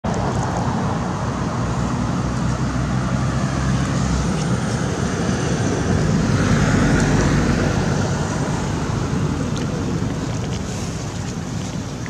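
Steady outdoor rumble and hiss, heaviest in the low end, swelling slightly about six seconds in.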